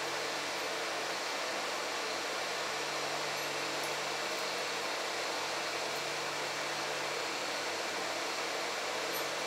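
Steady fan noise: an even hiss with a faint low hum, holding level throughout with no distinct clicks or knocks.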